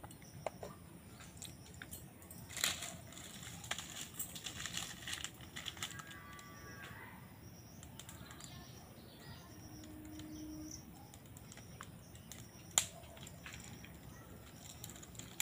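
Dry twigs and sticks rustling and cracking as they are handled and lit for a wood fire in a clay stove, with a sharp snap near the end.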